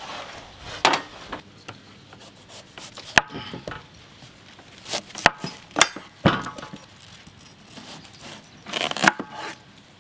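A knife cutting a whole watermelon on a wooden chopping board: irregular sharp knocks of the blade through the rind onto the board, with quieter scraping between them.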